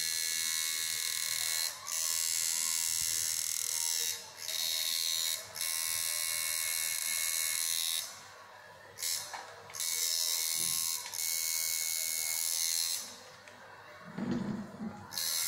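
Tattoo machine buzzing in runs of a few seconds against skin, stopping briefly several times, with longer pauses about eight seconds in and near the end.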